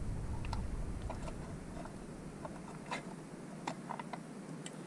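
Scattered light clicks and taps of small metal chainsaw parts being handled as the greased clutch drum bearing and spur sprocket are fitted onto the saw.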